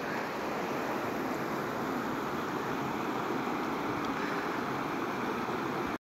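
Steady rushing of a mountain river, an even hiss with no change in level.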